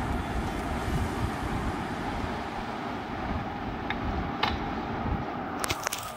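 Steady low background rumble, with a few sharp clicks about four and a half seconds in and again near the end as metal-framed glasses are handled and set down on a wooden table.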